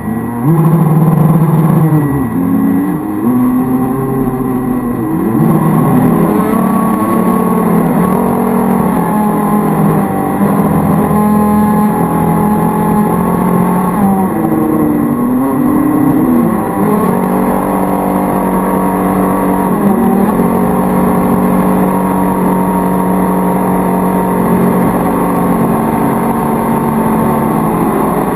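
Brushed electric motors of a converted toy RC boat whining under throttle, the pitch rising and falling as the speed changes.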